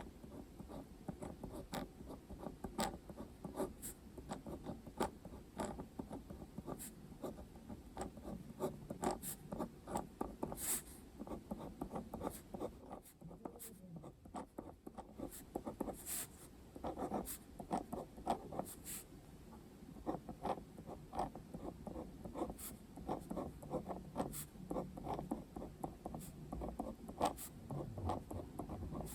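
Handwriting on paper: a continual run of quick scratching strokes and small taps, easing briefly about halfway through.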